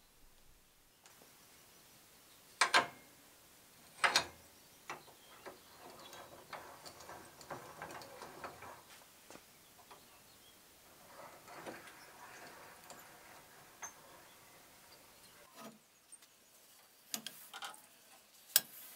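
Steel parts handled in a bench vise: sharp metal clinks, the two loudest about 3 and 4 seconds in, with quieter scraping as a flat steel strip is slid into a homemade bending jig. Several more sharp metal clinks near the end as the strip is hammered into the jig.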